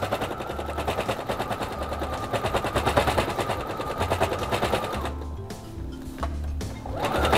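Electric sewing machine stitching at speed, a fast steady run of needle strokes through layered fabric and batting; about five seconds in it stops for roughly two seconds, then starts stitching again near the end.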